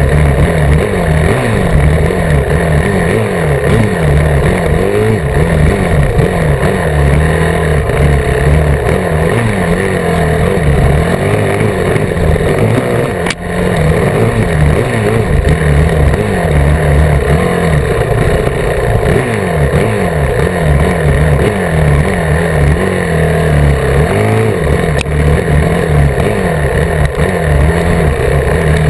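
Dirt bike engine under load on a trail ride, revving up and easing off again and again, its pitch climbing and falling as the rider works the throttle and gears. The sound drops briefly about halfway through.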